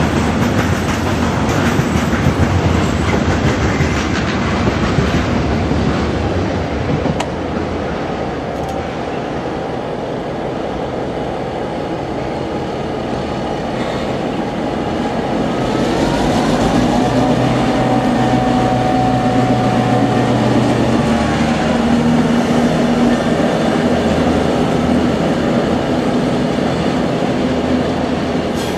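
Nohab-built DSB class MY diesel-electric locomotive's EMD 567 two-stroke V16 engine working hard as the locomotive pulls slowly away. The engine is loud for the first several seconds, eases off, then builds up again past the middle as it opens up.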